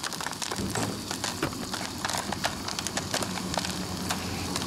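Popcorn kernels popping inside a foil-dome stovetop popcorn pan on a canister gas stove: rapid, irregular sharp pops while the pan is shaken over the burner, over a low steady hum.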